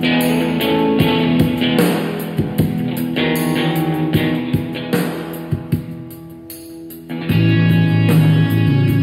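Guitar-led music played through a Bluedio CS-4 Bluetooth speaker in a sound test. It thins to a quieter passage a little after six seconds in, then comes back louder with strong bass about seven seconds in.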